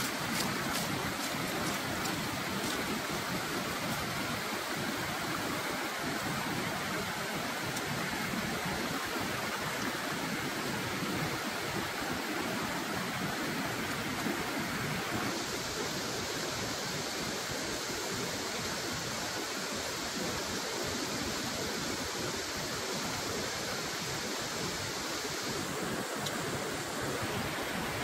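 Steady rush of a rocky stream running. A few crisp crunches of lettuce leaf being bitten come near the start.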